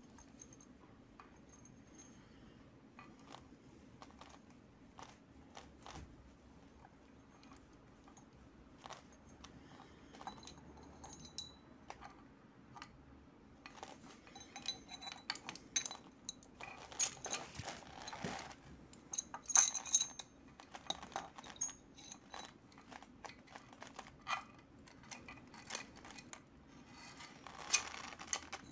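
Metal clinking and jingling from a Honda CBR250R's cam chain and camshafts being handled, the loose chain links and sprockets rattling against each other in irregular small clicks. It grows busier about halfway through and again near the end.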